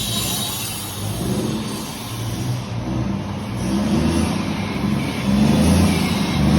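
Scania truck's diesel engine revved through its exhaust, in repeated surges that grow louder toward the end.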